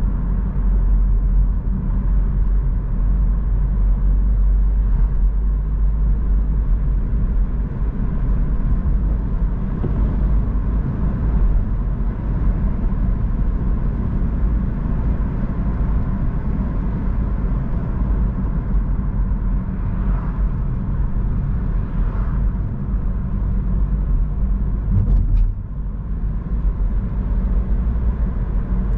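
A car driving along a road: a steady low rumble of engine and road noise, with a brief knock near the end.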